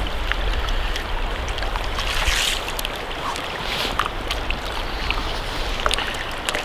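River water running and lapping around a drift boat, with wind rumbling low on the microphone and a few light clicks. Two brief hissing swishes come about two and a half and about four seconds in.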